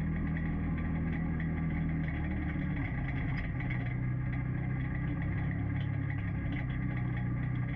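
A vehicle engine running steadily at a low, even pitch, which shifts slightly a couple of times.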